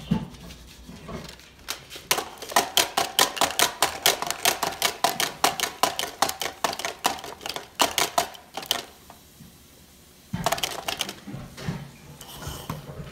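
A fast run of hard clicks and clacks, several a second, for about seven seconds, then a pause and a brief second cluster of clicks.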